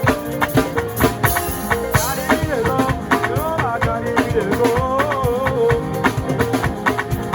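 A live band playing in rehearsal: a steady drum beat with shaker-like percussion under held chords. A sliding melodic line comes in about two seconds in and again around the middle.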